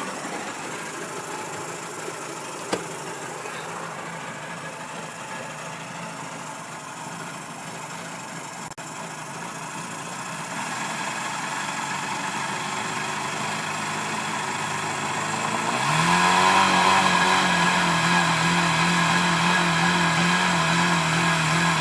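1990 Mercury 100 hp 2+2 two-stroke outboard running out of gear: it idles a little rough, then about sixteen seconds in it is brought up to a steady higher speed, around 2,300 RPM, where the engine speed hops around. The owner suspects a fuel or timing problem.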